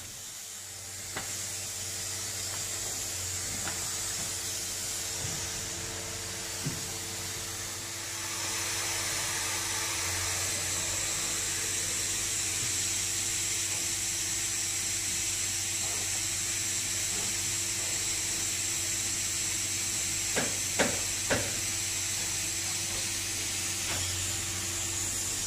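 Steady hiss of air over a low machine hum from spray-foam insulation equipment, growing louder about eight seconds in. A few sharp clicks come a few seconds before the end.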